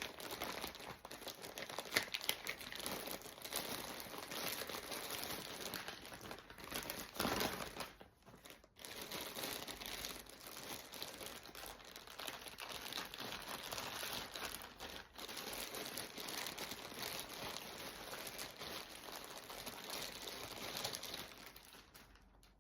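Packaging crinkling and rustling as a package is unwrapped by hand, with sharp crackles throughout. The handling pauses briefly about eight seconds in and stops just before the end.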